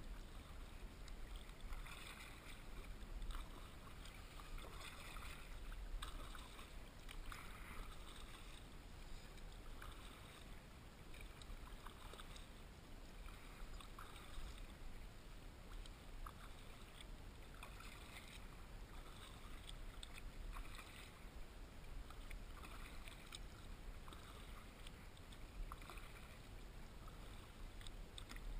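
Double-bladed kayak paddle strokes splashing in rhythm, about one stroke a second, as a Wavewalk 500 twin-hull kayak is driven against a strong current. Beneath them is a steady low rumble of water and air.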